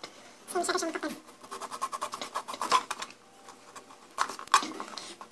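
Kitchen knife slicing a lemon on a plastic cutting board: a quick run of small clicks and scrapes as the blade meets the board, with a few more taps near the end.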